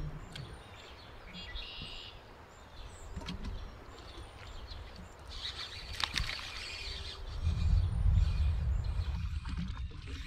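Quiet lakeside outdoor ambience with birds chirping faintly about a second and a half in and a few light clicks. From about seven and a half seconds in, a low rumble rises and holds.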